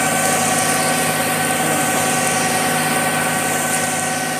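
Concrete mixer truck's diesel engine running steadily while it discharges concrete down its chute, with a steady whine over the engine.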